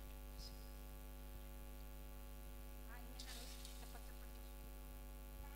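Steady electrical mains hum from the PA sound system, a constant low buzz with many overtones, with a faint brief murmur of voices about three seconds in.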